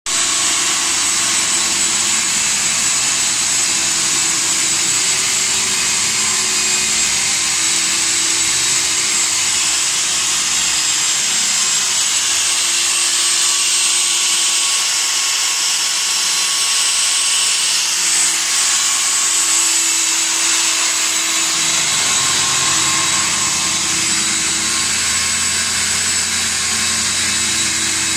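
Stand-mounted wet diamond core drill running steadily as it bores through a concrete floor slab, its motor holding one even pitch. A deeper rumble joins in for the last few seconds.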